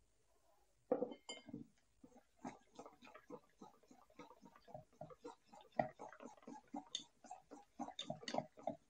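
Stainless steel wire balloon whisk beating thick gram-flour batter in a steel bowl: rapid, rhythmic clicking and tapping of the wires against the bowl, several strokes a second, starting with a sharper knock about a second in.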